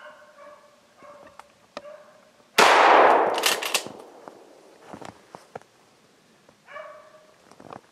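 A single gunshot about two and a half seconds in, a sharp report that fades away over about a second, taken at a snowshoe hare running ahead of beagles. Beagles bay at the start and again near the end.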